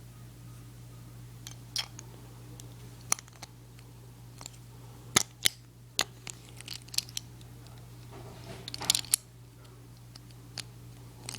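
Scattered sharp clicks and snaps of a Beyblade's plastic and metal parts being handled and fitted apart, about a dozen, with a short cluster about nine seconds in.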